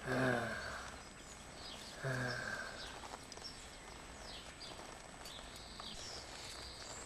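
Two short low vocal sounds about two seconds apart, with faint high chirps after them.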